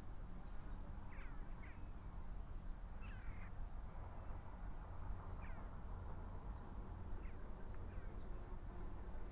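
Birds calling outdoors: several short, falling calls every second or two, some in quick pairs, over a steady low rumble.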